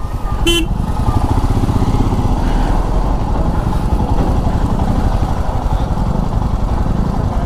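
Motorcycle engine running steadily at low revs, with a brief sharp click about half a second in.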